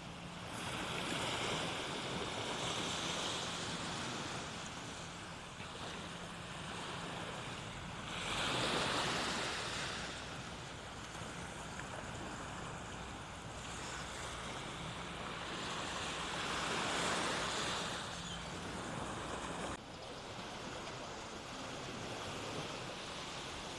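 Gulf surf washing onto the beach, with three waves swelling and fading over a steady hiss of water.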